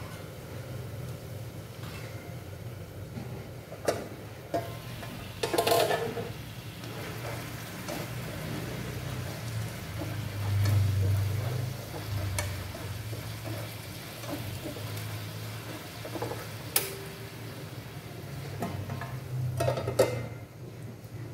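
Food stirred with a utensil in a frying pan, with a few sharp clinks and short clatters of a metal pan lid and utensil, the biggest about six seconds in and again near the end, over a low steady hum.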